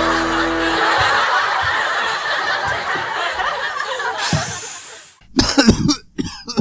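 A laugh-track style sound of many people laughing at once, fading out over about five seconds. Then a few short, separate vocal bursts come near the end.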